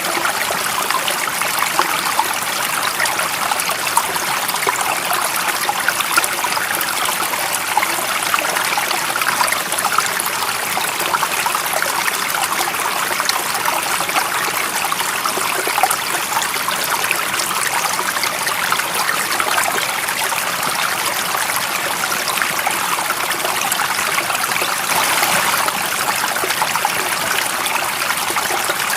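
Stream water running and trickling steadily over stones, a continuous babble with fine splashy crackle and no change in level.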